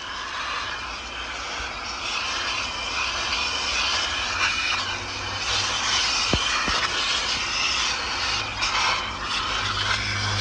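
Vacuum cleaner running steadily, its brush nozzle on the end of a ribbed hose being worked over a rubber truck floor mat to suck up dirt. It grows louder over the first few seconds.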